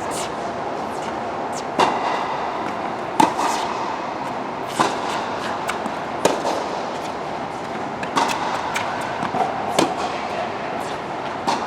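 A ball being struck back and forth in a rally: sharp hits about every second and a half, with fainter clicks between them, over a steady background hiss.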